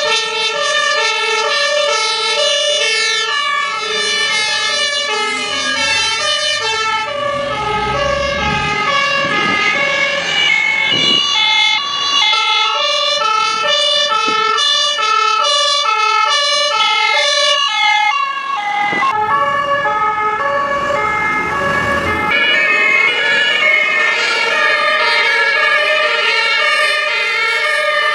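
Fire truck siren sounding a steady two-tone hi-lo pattern, switching pitch about twice a second. A heavy vehicle's rumble rises underneath it twice, and the recording changes about two-thirds of the way through.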